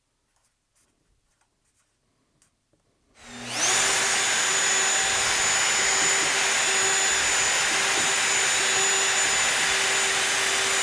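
Festool plunge router spinning up about three seconds in and then running steadily with a high whine while boring 5 mm shelf-pin holes through the template; its pitch dips slightly a few times as the bit cuts.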